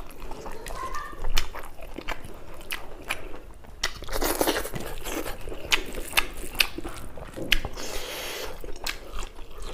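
Close-miked chewing of rice and spicy buffalo meat eaten by hand, with wet lip smacks and many sharp mouth clicks at an irregular pace. A louder, noisier burst comes about four seconds in as a handful goes into the mouth.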